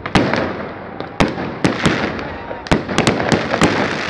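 Aerial fireworks bursting overhead: about a dozen sharp bangs at uneven spacing, with crackling between them.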